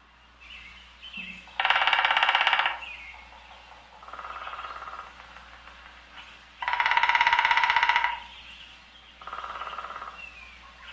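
Woodpecker drumming on wood: four rapid rolls of strikes, each about a second long, the second and fourth louder than the first and third. Faint bird chirps sound between the rolls.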